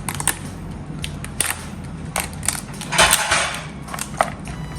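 A cooked mud crab's shell being pulled apart by hand: scattered cracks and snaps, with a louder crunching tear about three seconds in.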